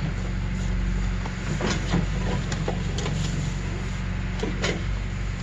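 An engine running steadily, with several sharp knocks and clanks over it, the loudest about two seconds in and near the end.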